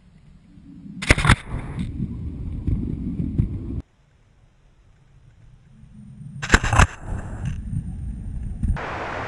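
A snow plow train ramming through deep snow: a low rumble grows, there is a sudden loud blast as the plow strikes the snow, then a steady low rumble as it passes. This happens twice, each time cutting off abruptly.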